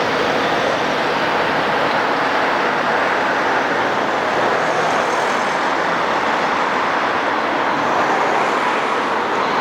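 Steady city traffic noise, an even, unbroken rush with no distinct events.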